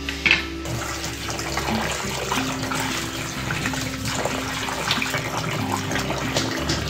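Running water splashing into a plastic bowl as hands rub and stir cut pumpkin pieces to wash them, starting just under a second in, with background music.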